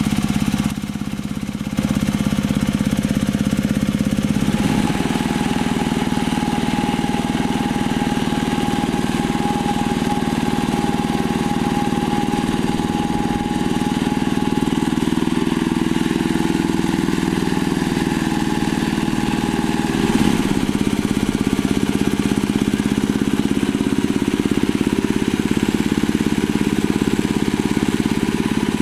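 Two-wheel hand tractor's single-cylinder Kubota diesel engine running steadily under load while ploughing a wet rice paddy on mud-clogged cage wheels. It is briefly quieter about a second in.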